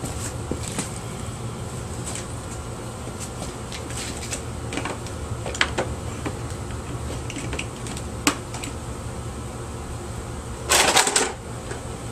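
Plastic vacuum-cleaner housing being handled and taken apart with hand tools: scattered light clicks and knocks of plastic and tools, then a short, louder rattling clatter near the end as a part comes free. A steady low hum runs underneath.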